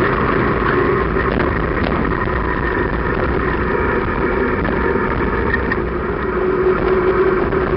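Motorcycle-and-sidecar rig cruising at road speed, its engine running steadily under a constant rush of wind and road noise, heard from the sidecar behind its windscreen.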